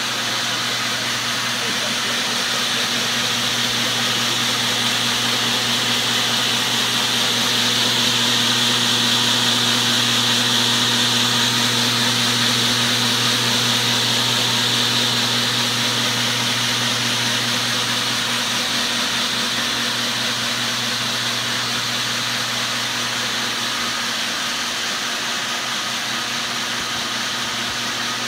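AT500H box-to-box seed treater and its auger running: a steady electric-motor hum under the hiss of treated seed flowing through the auger, swelling a little midway.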